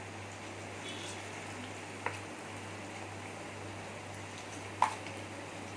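Marinated chicken pieces deep-frying in hot oil in a kadai, giving a steady sizzle. Two short sharp clicks sound over it, one about two seconds in and a louder one near five seconds.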